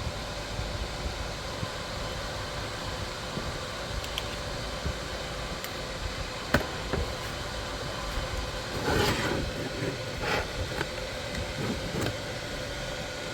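Steady machine hum with a faint whine from a 300 W pulsed laser cleaning machine running. A few brief louder rushes come about nine, ten and twelve seconds in.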